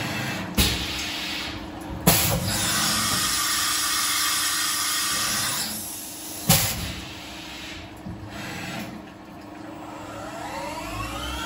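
Syil X7 CNC mill's automatic tool change: three sharp clunks as the tool is released and clamped, with a hiss of air for a few seconds in between, over a steady machine hum. Near the end the spindle spins up in a rising whine.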